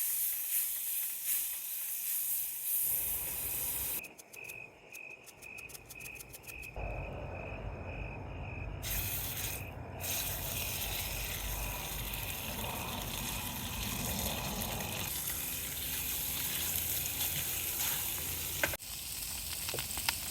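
Northern pikeminnow fillets frying in hot butter in a pan: a steady sizzle, dropping quieter for a few seconds about four seconds in.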